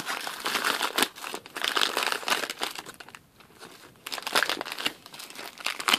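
Crinkling of a trading card pack wrapper being handled as the cards are worked out, a dense run of small irregular crackles that eases off for about a second near the middle.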